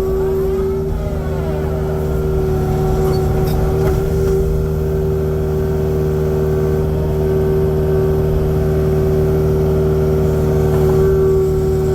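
Kubota compact excavator's diesel engine running steadily at working speed, with a strong, steady tone over it.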